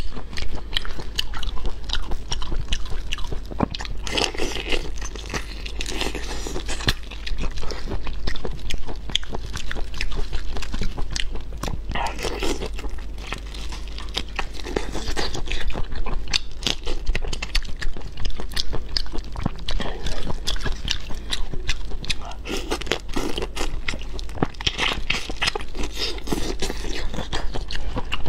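Close-miked eating of raw marinated shrimp: shells crackling as they are peeled by hand, with biting and wet chewing. Dense small clicks throughout, with louder crackling spells every few seconds.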